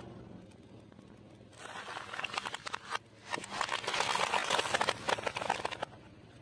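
Car tyre rolling over and crushing a red strawberry-shaped object: crackling crunches start about a second and a half in, pause briefly near three seconds, then come back denser and louder until shortly before the end.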